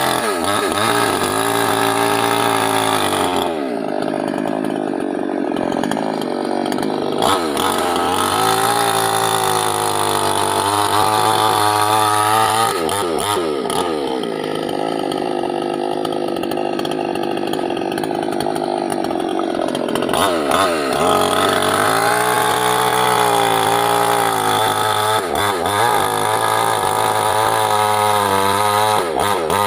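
Small petrol two-stroke chainsaw, a Chinese-made mini saw branded Stihl, running hard and cutting teak wood. The engine pitch rises and falls again and again as the chain bites into the wood and frees up, with longer spells where it drops lower.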